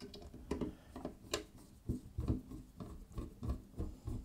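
Hand screwdriver driving a power-supply mounting screw into the back panel of a PC case. It makes a run of short, irregular clicks and scrapes as the screw is turned in and the driver is regripped.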